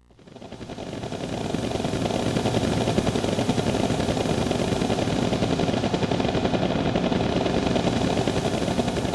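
Synthesized sound effect from a karaoke machine's Roland SC-88 sound module: a dense, rapidly rattling engine-like noise. It fades in over about a second and a half, then holds steady and loud.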